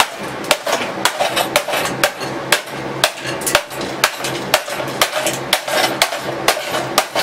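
Claw hammer striking the hard plastic housing of a kitchen mixer, a sharp knock about twice a second in a steady rhythm; the plastic does not break.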